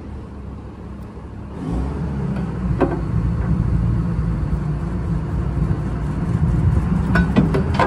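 Crane's diesel engine running, picking up abruptly about a second and a half in to a steady low rumble, with a few sharp metal clanks, one about three seconds in and a cluster near the end.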